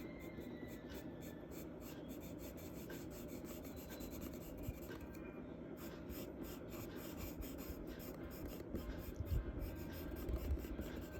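Charcoal scratching across drawing paper in many quick, short strokes, with a couple of soft thumps about nine and ten seconds in.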